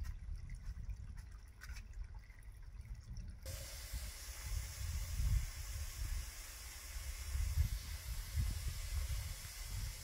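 Steady hiss of running water that starts abruptly about three and a half seconds in, over a low, uneven rumble.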